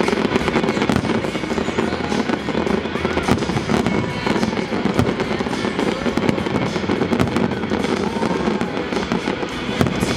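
Fireworks display: a dense, continuous run of bangs and crackles, with music playing at the same time.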